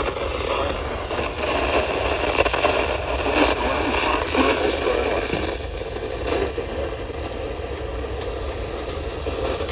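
Static from a weather radio receiver: a steady hiss with a few faint clicks and no clear voice coming through.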